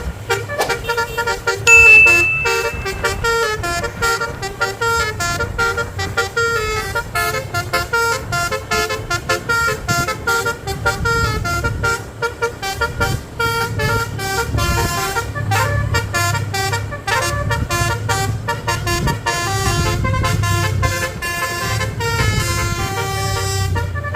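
Bus basuri horn, the multi-trumpet 'telolet' air horn, playing a fast melody of short notes stepping up and down, over a low rumble. About two seconds in, a brief shrill high tone is the loudest sound.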